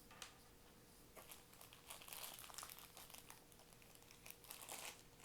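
Faint rustling, crinkling and small clicks of hands handling a knife case and its padded packaging, busiest about two seconds in and again near the end.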